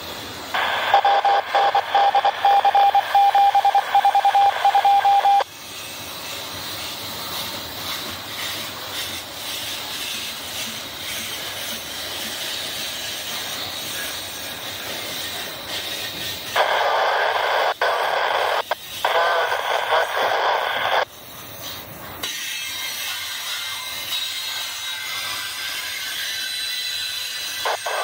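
Double-stack intermodal freight train rolling past, a steady rumble and clatter of the cars. Twice a much louder, narrow, radio-like sound cuts in and out abruptly, first for about five seconds with a steady tone in it, then for about four seconds from about halfway through.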